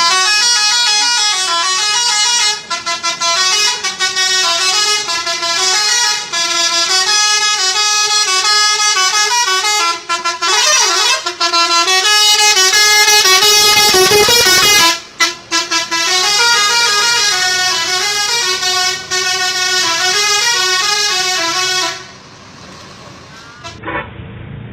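Bus 'telolet' multi-tone musical horn playing a fast tune of stepped notes, loud and continuous. It cuts off abruptly about three-quarters of the way through, leaving only quieter background noise.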